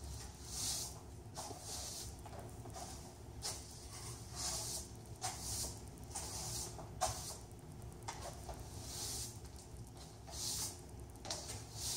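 Broom bristles swishing across a hard floor in repeated strokes, with sharp clicks from stiletto heels stepping on the floor now and then.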